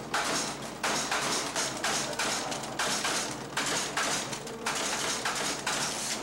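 A keyboard-operated office machine clattering in short, slightly irregular mechanical bursts, roughly one or two a second, as its keys are worked.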